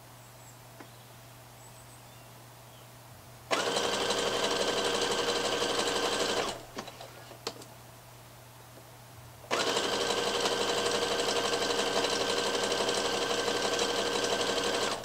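Electric domestic sewing machine stitching through knit fabric in two steady runs. It starts about three and a half seconds in and stops after about three seconds, with a couple of faint clicks while the fabric is repositioned. It starts again at about nine and a half seconds and runs on at an even speed.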